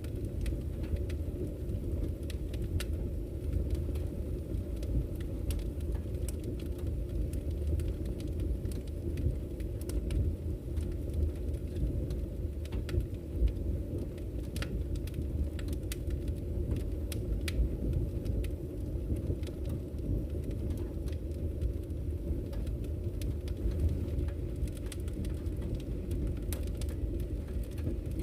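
Wood fire burning in a fireplace: a steady low roar of the flames with irregular sharp crackles and pops from the burning logs.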